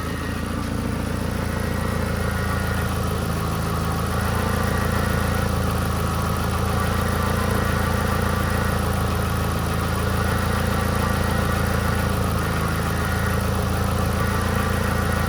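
Volkswagen Gol G4 engine idling steadily, with a subtle drone from the hydraulic power-steering system that comes and goes in intensity, a noise the owner says gets worse once the engine is warm. A holed exhaust adds to the running sound.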